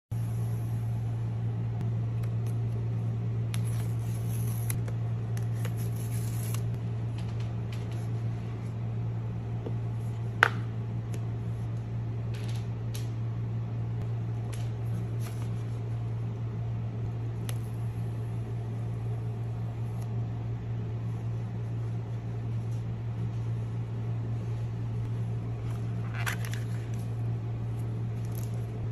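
Steady low hum under scattered faint clicks and rustles of an iPhone box and its paper packaging being handled, with one sharp click about ten seconds in and a brief rustle near the end.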